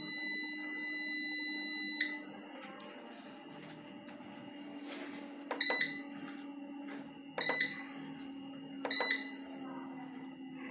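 Platinum solar inverter's touch-panel buttons beeping as they are pressed: one long beep that stops about two seconds in, then three short beeps, each starting with a click, a second or two apart. A steady low hum runs underneath.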